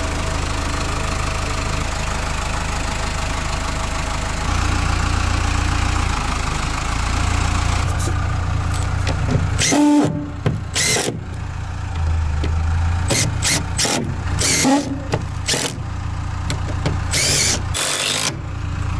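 Forklift engine running steadily throughout. From about eight seconds in, a cordless impact driver fires in a series of short bursts, driving lag screws with round washers into OSB-faced wall panels.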